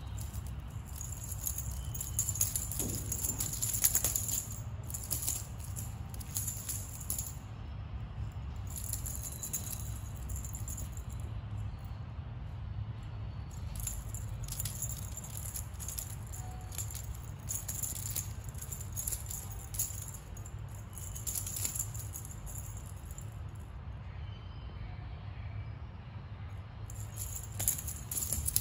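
Metal bead chain of a cat toy rattling and jingling in irregular bursts as a kitten bats, bites and drags it across a tile floor, with a couple of short pauses.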